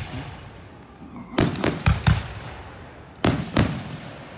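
Fireworks: aerial shells bursting overhead with sharp booms. Four come in quick succession about a second and a half in, and two more follow near the end.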